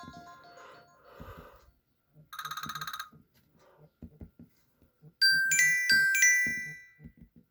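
Apple iPhone ringtones played one after another: one fades out, a short rapid trill of pulsing tones sounds about two seconds in, then a bright chime of struck bell-like notes rings and dies away.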